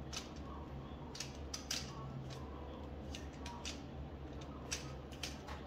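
Hard plastic toy dinosaur figures clicking and knocking against each other as they are handled, in irregular sharp clicks over a low steady hum.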